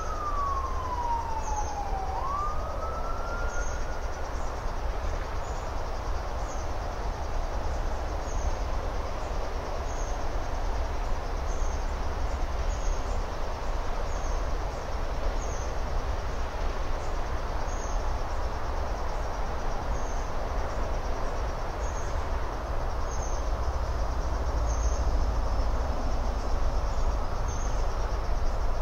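An emergency-vehicle siren wails, its pitch falling and then rising again, and fades out a few seconds in. Under it runs a steady hiss with a low rumble, and a faint high chirp repeats about once a second.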